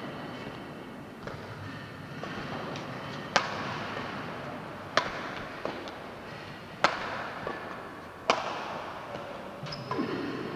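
Badminton rackets striking a shuttlecock back and forth in a doubles rally: about five sharp smacks roughly a second and a half apart, each ringing briefly in the hall.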